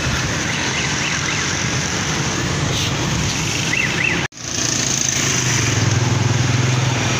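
Busy street traffic: cars, motorcycles and auto-rickshaws passing on a wide city road, a steady wash of engine and tyre noise. It cuts out briefly about four seconds in, then a steady low engine hum rises out of the noise.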